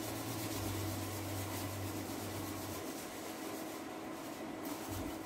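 A metal spoon stirring and softly scraping a thick grated sweet-corn batter in a small bowl, over a steady low hum that fades out about halfway through.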